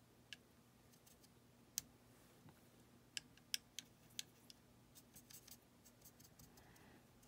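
Faint, sharp clicks and taps of a paintbrush against a plastic watercolour pan set as it picks up yellow paint and works it in the mixing wells. There are a couple of single taps at first, then a quicker run of them through the middle and later part.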